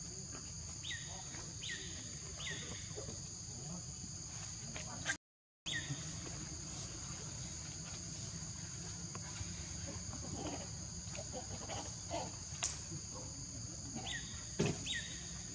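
Steady chorus of crickets or similar insects, a continuous high trill on two pitches. Short falling chirps come in threes, once near the start and once near the end, and the sound cuts out completely for about half a second around five seconds in.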